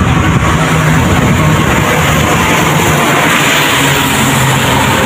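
Steady road traffic noise: engines of passing motor vehicles, large trucks among them, with low engine tones that shift in pitch.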